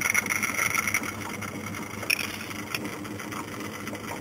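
Aerosol can of electrical insulation varnish hissing as it sprays onto a copper armature winding, stopping about a second in. A steady low machine hum continues underneath, with a couple of light clicks afterwards.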